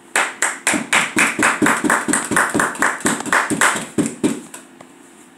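Hands clapping close by, a steady run of sharp claps at about four a second lasting some four seconds, then stopping.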